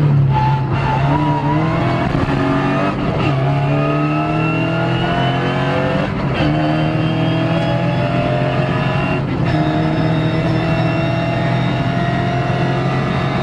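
Rally car engine heard from inside the cockpit, pulling hard and revving up through the gears, with a quick upshift about every three seconds.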